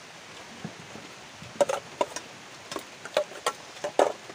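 Steady rain hiss, with a run of irregular sharp clicks and knocks starting about a second and a half in.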